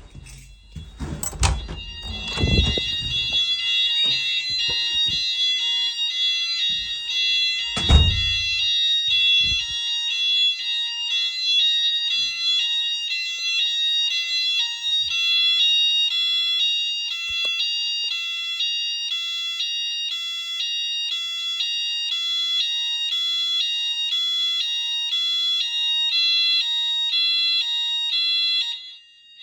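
Fire alarm sounders of a Nittan system sounding a loud two-tone alarm, switching pitch about once a second, and cutting off just before the end. A few thumps come in the first seconds, the loudest about eight seconds in.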